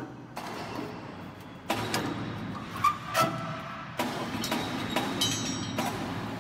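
Workshop noise around a roll forming machine being assembled: a steady rumble with several sharp metal knocks and clanks, and a brief high metallic ring about five seconds in.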